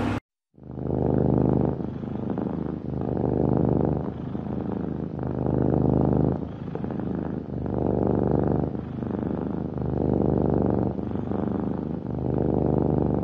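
Long-haired cat purring, in steady swells and dips about every one and a half seconds as it breathes in and out.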